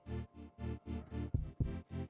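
Background music with a steady pulsing beat, about four notes a second.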